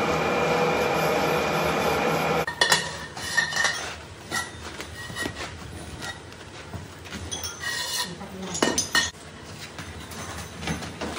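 Metal lathe running with a loud, steady machine noise that cuts off abruptly about two and a half seconds in. After that come quieter, scattered metallic clinks and knocks.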